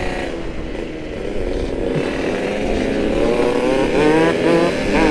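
Yamaha RX-King single-cylinder two-stroke motorcycle engine under way, quieter for the first couple of seconds, then revving up with its pitch climbing from about three seconds in. Wind rumbles on the microphone throughout.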